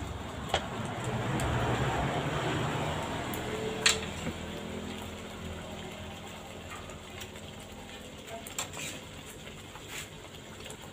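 Boiled chicken pieces are spooned from one pan into a wok of frying spice paste. A soft sizzle swells over the first few seconds, and a metal spoon clinks against the pans now and then, the sharpest clink about four seconds in.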